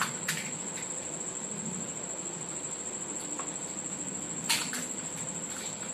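Crisp fuchka (panipuri) shells cracking and crunching as they are broken open and eaten: a sharp snap about half a second in and two more close together near the end. A steady high-pitched tone sounds underneath throughout.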